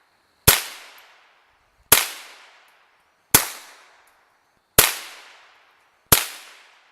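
A firearm fired five times in a steady cadence, about one shot every second and a half, each crack trailing off in a short echo.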